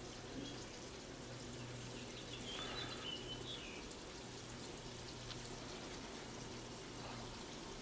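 Quiet outdoor ambience: a steady background hiss with a faint low hum that comes and goes, and a brief faint bird call about three seconds in.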